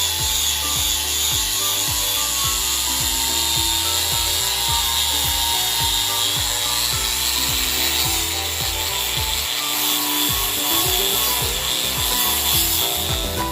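Background music with a steady beat over a continuous scraping, rasping noise of tool work.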